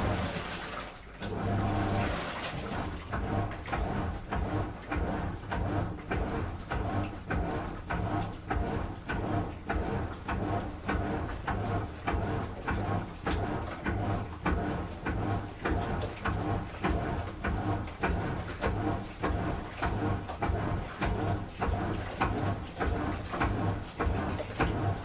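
Washing machine running a strong cycle: a steady motor hum under an even, rhythmic churning, about three strokes a second, picking up again after a short lull about a second in.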